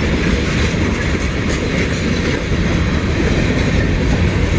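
Freight cars rolling past close by: a steady heavy rumble of steel wheels on the rails, with faint clicks of wheels passing over rail joints.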